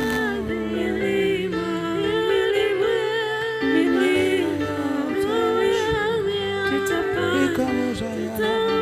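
Gospel worship music: a voice humming or singing a wordless melody over sustained low keyboard chords.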